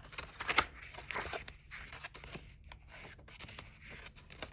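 Paper pages of a coloring book being turned, rustling with small irregular crackles and clicks, loudest about half a second in.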